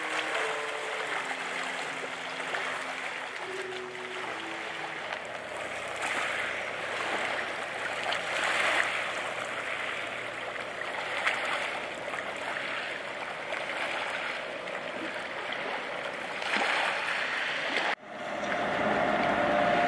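Small waves lapping and splashing against a rocky shoreline, a steady wash that swells every second or two. A few notes of music fade out in the first few seconds, and the sound cuts off suddenly near the end.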